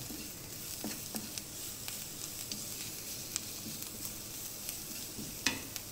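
Chopped onions and spices frying in oil in a wok, sizzling steadily while a wooden spatula stirs them, with scattered small clicks and a sharper tap about five and a half seconds in.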